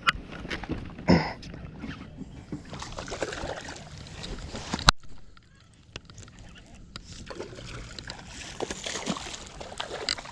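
Water splashing and sloshing beside a small boat as a hooked bass is fought close in, with scattered knocks and one sharp click about halfway through.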